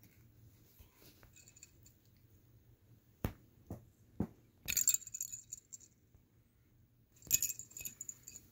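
Cat batting a toy mouse around: three soft knocks a little after three seconds in, then two short bouts of light metallic jingling.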